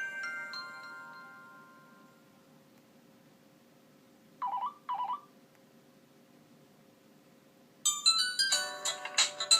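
Nokia 6500 Slide ringtones played through the phone's loudspeaker. A falling run of bell-like notes fades out in the first two seconds, two short chirps sound about halfway, and a louder, busier ringtone melody starts near the end.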